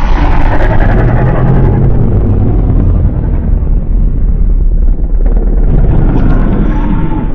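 A custom kaiju-style monster sound effect, loud and sustained, with a heavy low rumble under a harsh, noisy layer.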